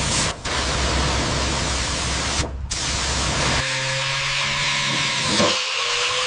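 A steady, loud spraying hiss that cuts out briefly twice, over a low machine hum; in the second half a faint tone rises slowly.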